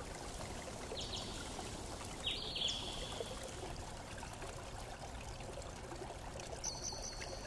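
Steady low hiss of recording background noise, with a few faint, short high-pitched tones about a second in, around two and a half seconds in, and near the end.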